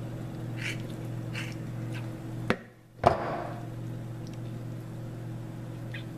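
Shears snipping open a lionfish's gut, giving a few faint clicks over a steady low hum. A sharp click comes about two and a half seconds in, then a brief drop in the sound and another sharp click.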